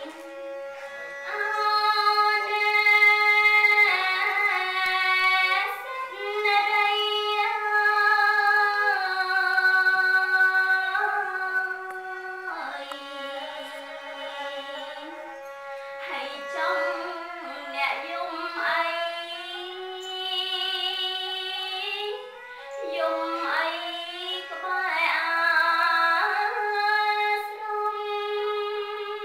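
A woman's solo voice chanting Khmer smot, the Buddhist sung recitation, in long held notes that waver and slide through ornamented turns from one pitch to the next.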